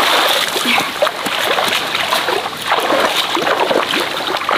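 Repeated splashing and sloshing of shallow, muddy pond water as a person wades and grabs at fish with her hands and a hand net, in quick irregular strikes.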